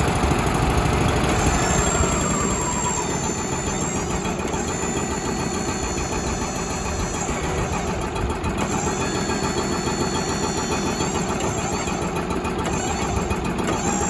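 Wood-Mizer hydraulic portable sawmill's engine running steadily just after its first start-up of the day. A tone falls in pitch in the first few seconds, and a thin high whine cuts in and out several times.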